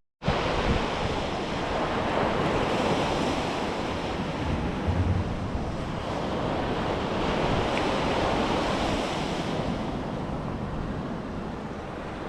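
Ocean surf washing onto a beach, with wind buffeting the microphone; a steady rush that swells and eases slowly.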